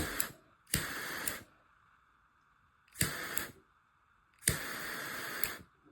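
Small butane jet torch lighter fired three times, each a click followed by a jet hiss lasting from half a second to about a second.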